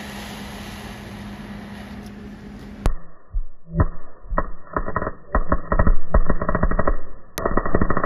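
MIG welder arc on the crankshaft tone ring: a steady fan hum at first, then about three seconds in the arc strikes in short, irregular crackling blips. Near the end it settles into a loud, fast, steady crackle.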